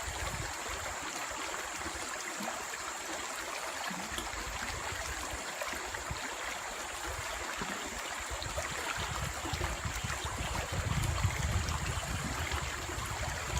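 Shallow forest stream flowing and trickling steadily, with some low rumbling in the second half.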